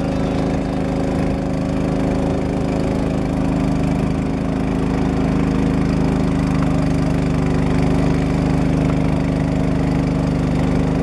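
Small boat's outboard motor running steadily at cruising speed, a continuous even engine drone with no change in pitch.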